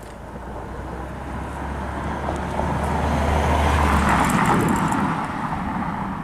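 A road vehicle passing close by: its engine and tyre noise swells to a peak about four seconds in and then fades, with a low steady hum that cuts off just after the peak.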